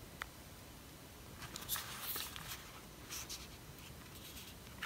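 Faint rustling, scraping and light clicks of hands handling a pair of over-ear headphones, with a small click just after the start and a cluster of handling sounds in the middle.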